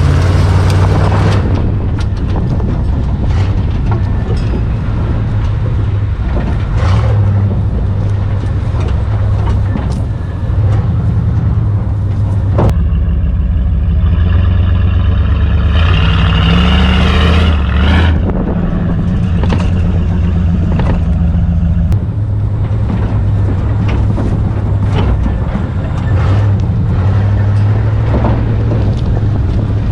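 Pickup truck driven over rough ground: the engine runs steadily under load, with scattered knocks and rattles as the truck bounces. A brief rise in pitch and noise comes a little past halfway.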